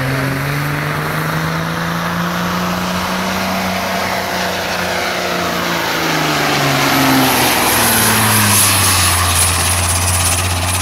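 Stock semi truck's diesel engine at full throttle pulling a weight-transfer sled. Its pitch holds and then sinks steadily through the second half as the sled drags the truck down, growing louder as it passes close.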